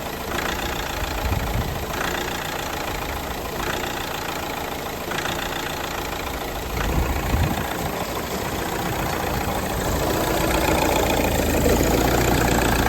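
Vauxhall Astra J 1.7 CDTI diesel engine idling roughly, surging about every second and a half, and running louder over the last few seconds. This is the engine hunting at idle, a known fault caused by surges in fuel pressure and most likely by a faulty suction control valve.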